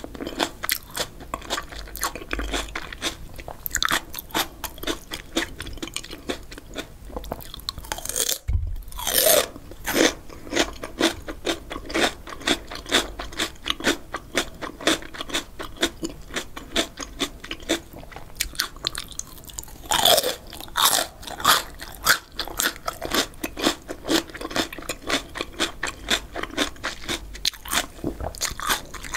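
Close-miked crunching and chewing of a fresh cucumber stick, a steady stream of crisp crunches with two louder bites, about nine and twenty seconds in.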